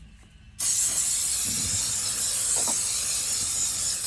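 Aerosol cleaner can spraying in one long steady hiss that starts abruptly about half a second in, disinfecting the car's HVAC box against bacteria and odour.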